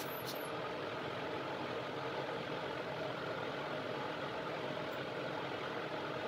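Steady blower drone of a clean-bench fan, with a light click or two of a drive being handled about a quarter of a second in.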